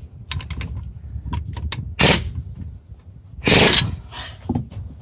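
Impact wrench firing in two short rattling bursts, about two seconds in and again a second and a half later, backing off a wheel-weight bolt on a tractor wheel. Light metal clinks of tools come before the bursts.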